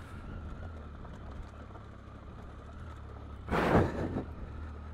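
Triumph Tiger 800 inline-triple engine running steadily as the motorcycle rolls along a gravel trail. A short, loud rushing noise comes about three and a half seconds in.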